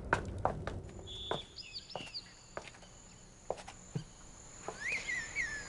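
Footsteps on hard ground for the first second or so, then small birds chirping in short, gliding calls over a thin, steady high insect drone.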